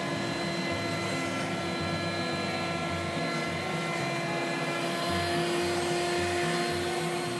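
Router running in a router table with a solid carbide spiral bit, jointing the edge of a figured maple board fed along the fence: a steady whine over a hiss.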